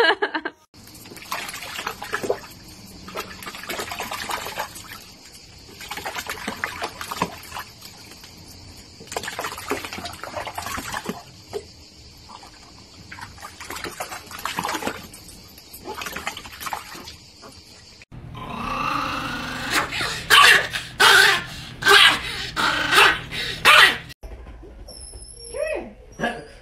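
A small dog splashing about in water in a plastic paddling pool for a long stretch. It is followed by several seconds of loud dog vocalising.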